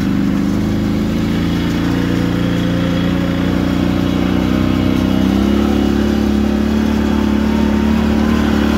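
ATV (quad bike) engine running while under way, its note rising slowly, then changing about five and a half seconds in. It is heard close up from the seat.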